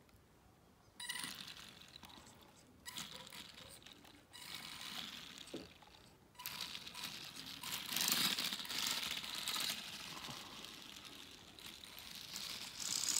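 Homemade RC car's small geared DC motor whirring, with its plastic gears and rubber wheels rattling over concrete paving tiles. The sound starts and stops in bursts as the throttle is worked: about a second in, again near three seconds and at six seconds, and is loudest around eight seconds.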